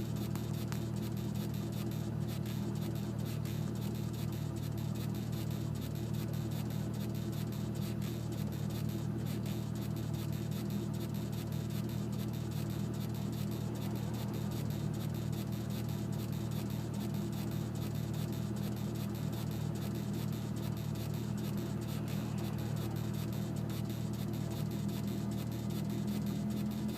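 Steady hum with several held low tones inside a 1998 Chevrolet Corvette, the unexplained weird sound that the owner hears coming from the dash. It stays unchanged throughout.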